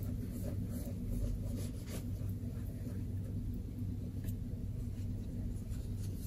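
Microfiber cloth wiping a MacBook Pro's glass screen dry: faint, irregular rubbing swishes over a steady low hum.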